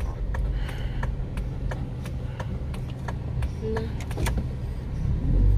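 Hazard-light relay ticking steadily, about three clicks a second, inside a slow-moving car's cabin over the low rumble of the engine and road.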